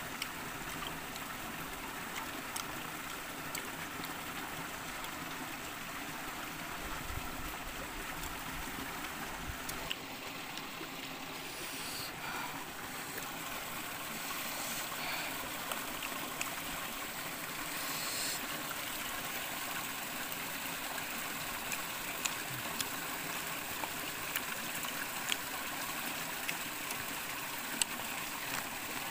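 Shallow rocky stream flowing steadily, with a few short sharp clicks over it in the second half.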